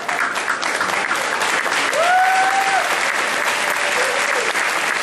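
Audience applauding, with one voice letting out a held cheer about two seconds in.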